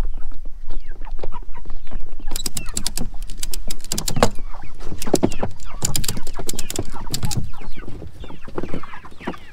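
Ratchet strap being cranked tight, its ratchet clicking in several quick runs, while meat chickens cluck inside the wooden chicken tractor.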